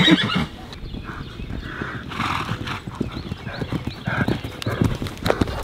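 Hoofbeats of several horses and a pony moving around a sand-and-gravel arena under saddle: many quick, uneven, soft thuds that overlap.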